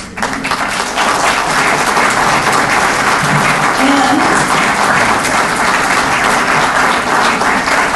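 Audience applauding. The clapping starts at once, swells over the first second and then holds steady and loud.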